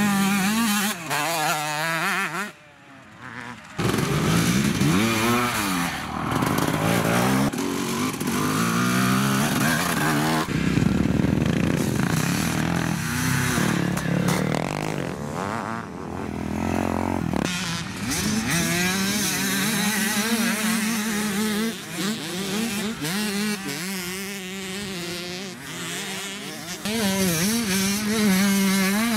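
Off-road motorcycle engines revving hard as dirt bikes power one after another through a loose dirt corner, the pitch rising and falling with each pass. The sound drops away briefly about three seconds in.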